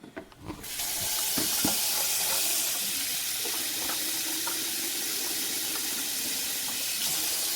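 Tap water running steadily into the plastic clean-water tank of a Tineco iFLOOR 3 Breeze floor washer. It starts about half a second in.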